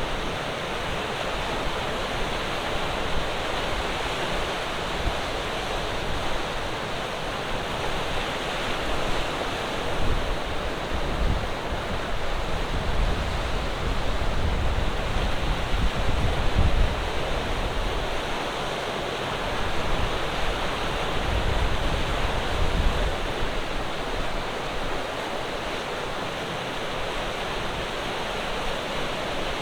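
Ocean surf: a steady wash of waves breaking on a rocky shore, swelling louder and deeper as sets roll in about a third of the way through and again past two-thirds, with wind on the microphone.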